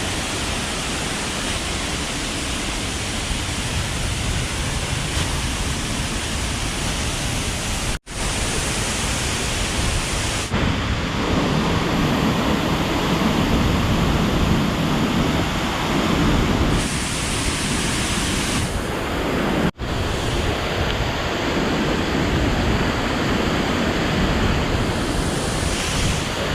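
Steady rushing noise of a waterfall, broken by two abrupt cuts, about a third of the way in and again about three quarters of the way in.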